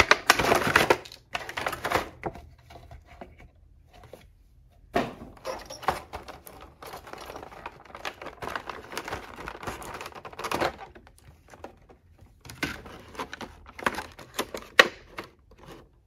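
An action figure's cardboard box being opened and its clear plastic blister tray slid out and handled: rustling and crinkling plastic with scattered clicks and taps, densest in the first second and again in the middle, with a sharp click near the end.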